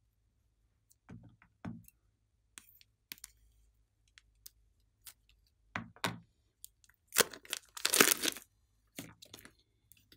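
Plastic piping bag full of slime being squeezed and handled: scattered crinkles and sticky crackles, then a longer, louder crinkling burst about seven seconds in.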